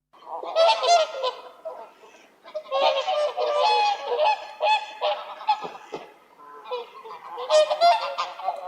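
A flock of geese honking, many calls overlapping, in busy stretches with short lulls about two seconds and six seconds in.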